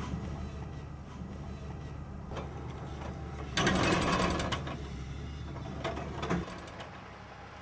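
A steady low engine hum that cuts off suddenly near the end, with a loud burst of cloth rustling and scraping about halfway through as an old blanket is pulled from a truck bed, and a shorter one just before the hum stops.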